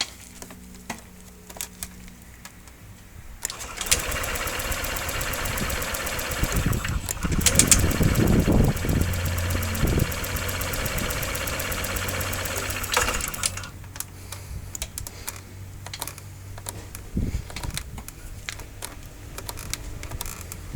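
Honda SH150i scooter's electric starter cranking its single-cylinder four-stroke engine for several seconds until it catches, then the engine idles steadily at a lower level. It is slow to start, which the owner puts down to cleaning fluid poured into the intake manifold.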